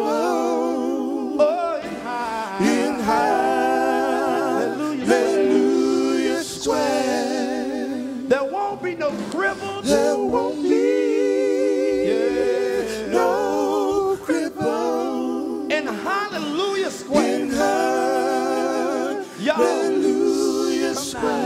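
A single voice singing a slow gospel song a cappella, holding long notes with a wide vibrato and pausing briefly for breath.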